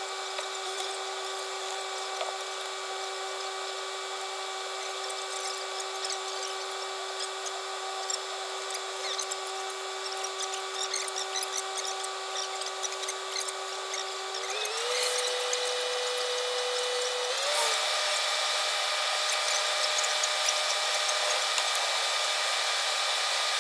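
Steady high-pitched mechanical whine of a running machine, with a string of overtones. Its pitch steps up twice, about fifteen seconds in and again a few seconds later, getting a little louder as it climbs.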